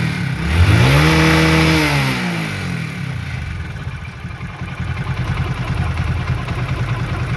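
Hero Splendor Pro's 100 cc single-cylinder four-stroke engine revved once, rising and falling back over about two seconds, then idling steadily. A new timing chain kit has been fitted and there is no timing-chain rattle, only a light tappet tick that the mechanic means to adjust.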